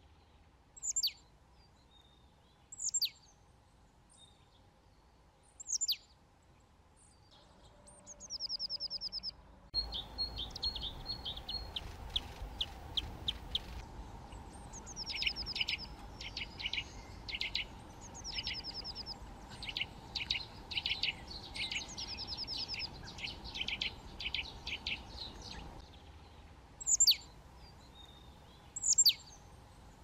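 Eurasian nuthatch calls: single sharp, down-slurred notes a couple of seconds apart, with rapid trills and quick series of piping notes through the middle.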